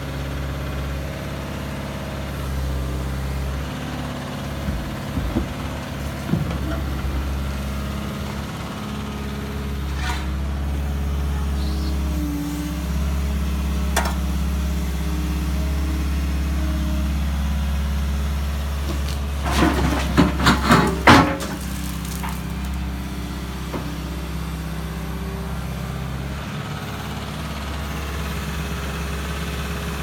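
Hyundai 140 hydraulic excavator's diesel engine running steadily as it works, with a few sharp knocks of the bucket on concrete and, about twenty seconds in, a short burst of loud cracks and crashes as pool concrete breaks up.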